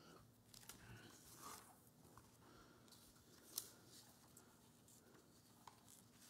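Near silence, with faint paper rustling and small clicks as sermon notes are handled at the lectern microphone, and one sharper click about three and a half seconds in.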